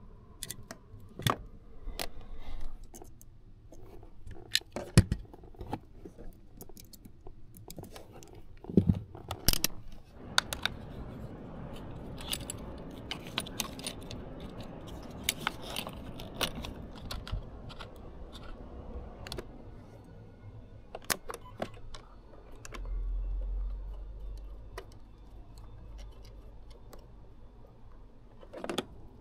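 Hand work with tools and small metal parts: scattered clicks, knocks and metallic rattles at irregular intervals, with a short low rumble about three quarters of the way through.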